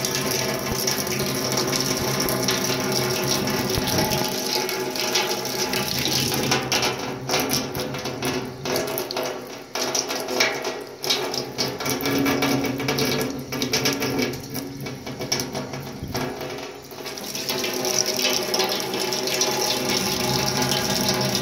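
Water running steadily from a wall-mounted mixer tap's spout into a sink. In the middle stretch the flow sound drops and comes unevenly, broken by a series of sharp clicks and knocks.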